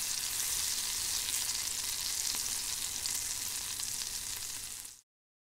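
Steady high-pitched crackling hiss that cuts off abruptly about five seconds in.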